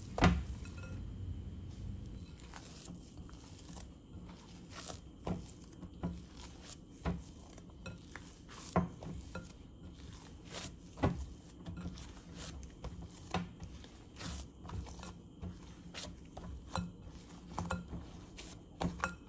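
Plastic mixing bowl knocking and clicking lightly and irregularly against the surface beneath it as hands flip and round soft pizza dough inside it.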